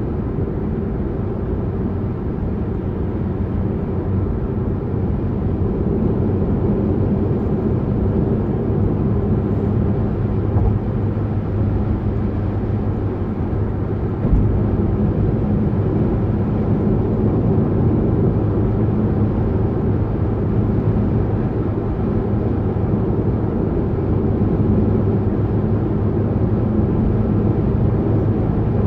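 Steady car engine and tyre noise of driving at motorway speed, with a brief low thump about fourteen seconds in.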